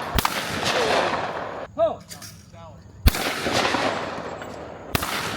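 Three shotgun shots at clay targets, each trailing off in a long echo: one just after the start, then two about two seconds apart in the second half.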